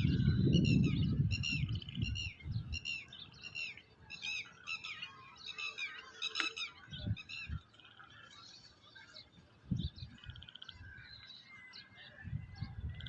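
Wind gusting through grass, buffeting the microphone in low rumbles that are strongest at the start and return in brief gusts later. Over it a small bird sings a quickly repeated note, about two a second for the first six seconds, then gives scattered chirps.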